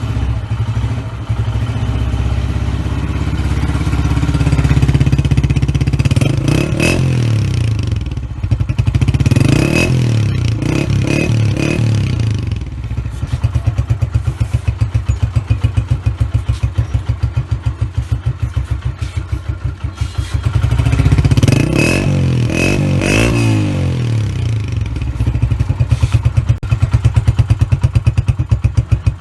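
Honda CG125's single-cylinder four-stroke engine idling through an aftermarket KYH black silencer, blipped up in short revs and falling back to idle several times: once about six seconds in, a few times between nine and twelve seconds, and again around twenty-two seconds. Near the end the idle has a plain, even thump.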